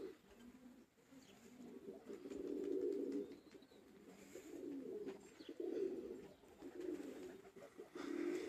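Pigeons cooing, a low murmuring coo repeated in several phrases of about a second each.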